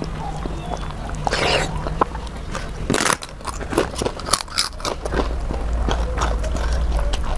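Close-up eating sounds: chewing with wet mouth clicks while fingers mash soft dal khichdi on a clay plate, and a few sharp crackles near the middle as a papad is crumbled into it.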